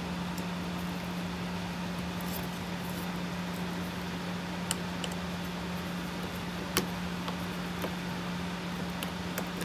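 A steady low hum, with a few faint, sharp clicks in the second half from a screwdriver and fingers working a small screw into a carbon-fibre helicopter frame.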